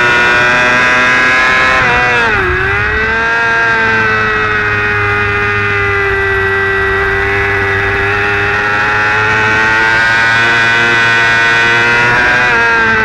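Superstock racing motorcycle's engine running at high revs, heard onboard with wind rush. Its pitch drops sharply about two and a half seconds in, then holds fairly steady.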